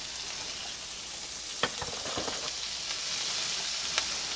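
Chopped onion sizzling in hot bacon grease in a stainless steel skillet, a steady frying hiss. A couple of sharp clicks come about a second and a half in and again near the end.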